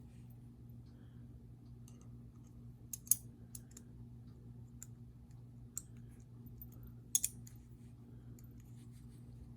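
Small metal knife parts and tools clicking and tapping as a disassembled folding knife is reassembled by hand. There are scattered light clicks, with sharper ones about three seconds in and again around seven seconds, over a steady low hum.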